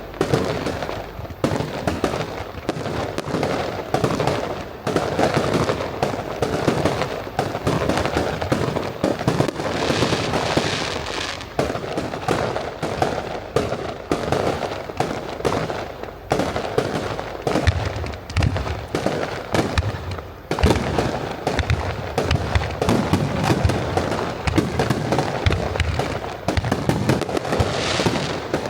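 Aerial fireworks shells bursting in a continuous rapid barrage, many bangs in quick succession. Crackling flares up about ten seconds in and again near the end.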